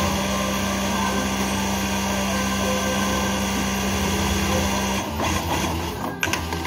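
Industrial flatbed sewing machine stitching at a steady high speed, then stopping abruptly about five seconds in, followed by a few short, irregular sounds.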